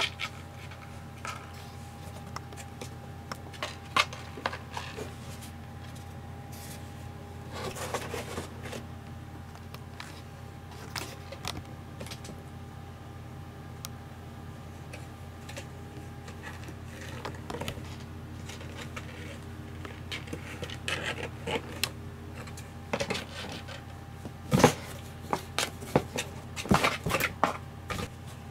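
Kittens scrambling and scratching on a cardboard box: scattered scrapes, taps and rustles of cardboard and paper, busiest near the end, over a steady faint hum.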